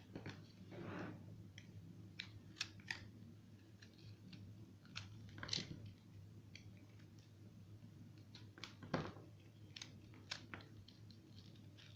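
Soap being cut into cubes: irregular crisp crunches and clicks, with a louder crunch about halfway through and another about three-quarters through.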